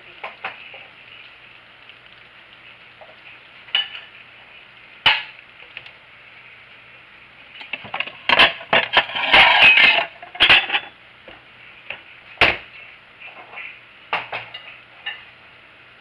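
Hot pan juices sizzling and crackling around a whole roast chicken in a stainless steel skillet just out of the oven, a steady faint hiss broken by scattered sharp clicks. About eight seconds in, a dense run of loud crackles and clicks lasts for a few seconds.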